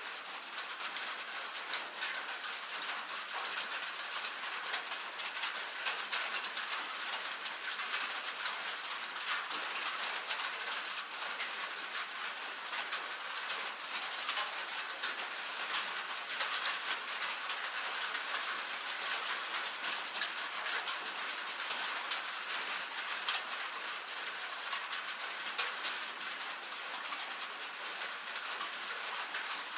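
Light rain falling on a metal roof: a steady hiss made of many small, sharp drop hits, with no low rumble.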